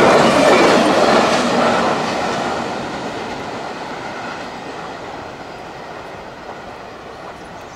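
Freight train cars rolling on the rails, a steady rumble of wheels on track that fades away as the train moves off.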